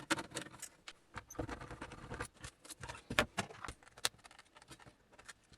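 Irregular small clicks, taps and rustles of hands handling an oscilloscope and working on its casing and parts to open it up.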